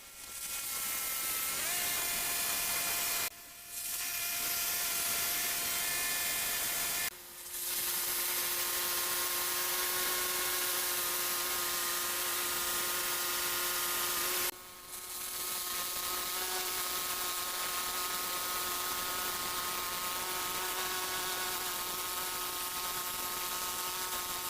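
Portable sawmill running steadily with a high hiss and a steady whine, cutting a hardwood log. There are three brief dips in the sound, and after each one the pitch of the whine shifts a little.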